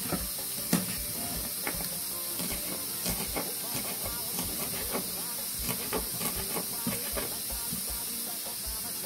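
Pressure cooker hissing steadily as it lets off steam, with a knife chopping green onion on a wooden cutting board in regular knocks about twice a second.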